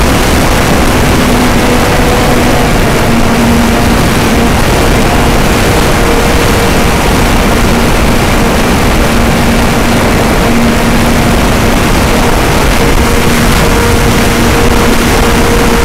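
Heavy wind buffeting the microphone, with the faint drone of a radio-controlled model plane's motor and propeller fading in and out as it flies.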